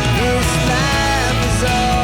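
Background rock music: a sung or lead melody gliding over a steady band backing.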